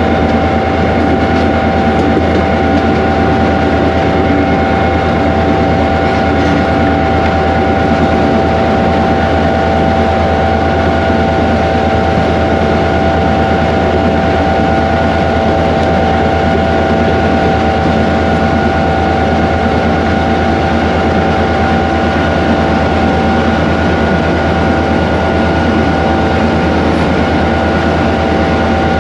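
Cab noise of a Pakistan Railways GMU-15 diesel-electric locomotive heading downhill: the engine runs steadily under a constant whine, with no change through the stretch.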